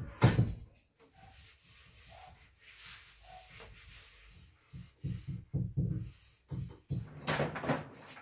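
Light wooden shelving unit being shifted and set down on a tiled floor: a knock at the start, then, from about five seconds in, a run of short dull thumps and knocks.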